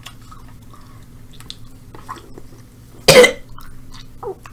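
A person coughing hard once, about three seconds in, after a few faint mouth clicks, with a shorter throaty sound near the end: a reaction to the burn of a freshly bitten Carolina Reaper pepper.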